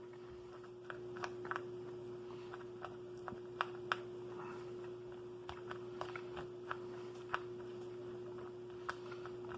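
Scattered light clicks and taps, about a dozen at irregular intervals, from handling an MRE meal pouch and its contents, over a steady low hum.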